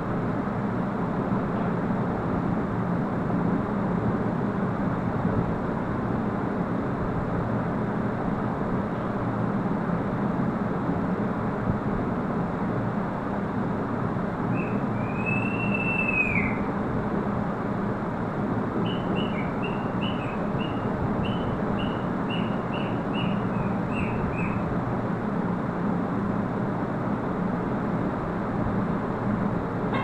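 An African grey parrot whistles once, a note that rises and falls, about halfway through, then gives a run of about a dozen short high chirps. A steady background hiss and hum runs underneath.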